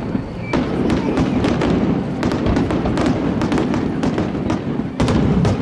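Aerial fireworks display: a dense, continuous barrage of bangs and crackling over a low rumble, with a loud burst about five seconds in.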